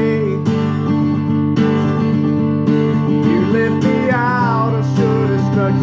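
Acoustic guitar strummed steadily with a man singing over it. In the middle he holds a long, wavering sung note.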